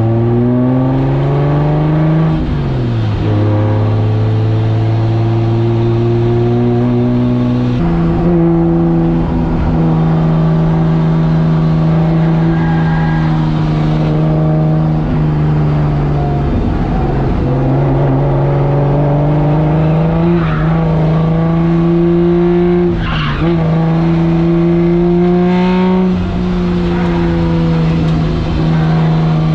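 Nissan S13 drift car's engine held at high revs through long drifts. Its pitch steps up sharply about eight seconds in, then drops and recovers briefly a few times.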